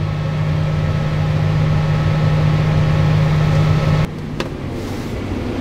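Tractor engine and grain cart unloading auger running steadily under load, heard from inside the cab while corn augers into a semi trailer. About four seconds in, the steady hum cuts off suddenly as the auger is shut off, leaving a lower engine note, with a sharp click just after.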